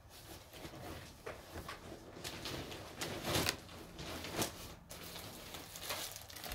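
Scattered rustling and small knocks of someone rummaging through bags of yarn, with a louder rustle a little past the middle.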